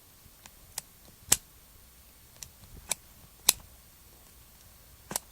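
Kershaw Shuffle folding knife being opened and closed by hand: about six sharp clicks as the blade snaps into place, the two loudest about a second and a half in and about three and a half seconds in.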